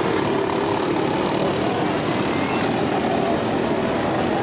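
Several small microstock race car engines buzzing together as the cars lap at speed, a steady overlapping drone whose pitches rise and fall as individual cars pass.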